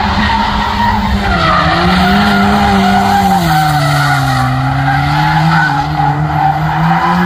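First-generation Mazda Miata drift car sliding sideways on full lock with its tyres squealing and its engine held high in the revs. The engine note sags a little past the middle and climbs back near the end.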